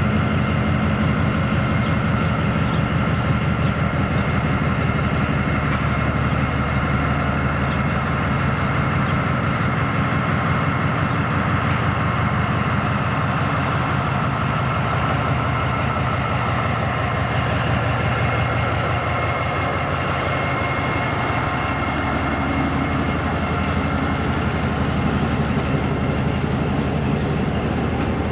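Diesel engine of the Myanmar Railways DF-class locomotive DF.2092 running steadily with a low throb as it pulls a passenger train slowly out of the station and past close by.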